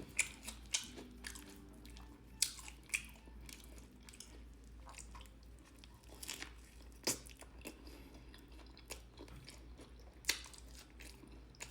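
Close-up chewing and biting of a sandwich on a toasted bun: scattered crisp crunches and small wet mouth clicks, with sharper crunches about two and a half, seven and ten seconds in.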